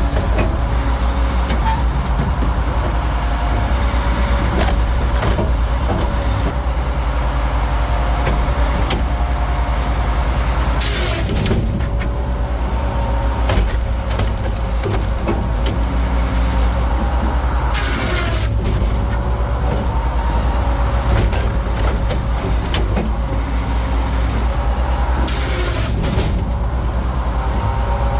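Firewood processor running: a steady engine drone with a short, loud, hissing burst about every seven seconds.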